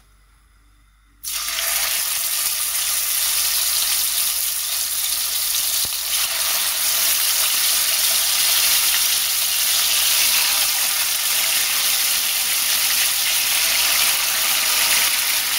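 Marinated chicken breast pieces sizzling steadily in hot cooking oil in a nonstick wok. The sizzle starts suddenly about a second in.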